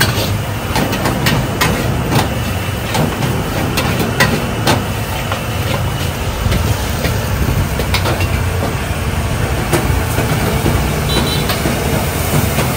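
Busy city street traffic: a steady engine rumble with scattered clicks and knocks.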